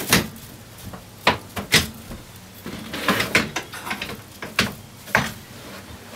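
Several sharp knocks and clunks, spaced irregularly with a small cluster in the middle, as drive and idle rollers are set in place in a wet felt rolling machine.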